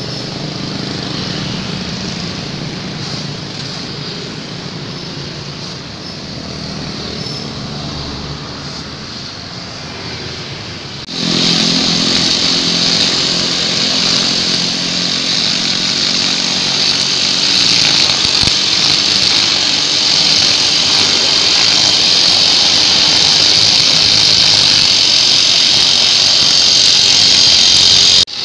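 Road traffic with motorcycles going by. Then, from a cut about eleven seconds in, a backpack brush cutter's four-stroke Honda GX engine runs close by at a steady high speed, its nylon line whining as it cuts grass.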